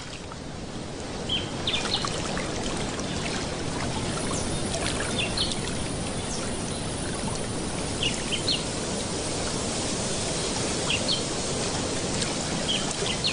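Steady rush of moving water, with short high bird chirps scattered through it.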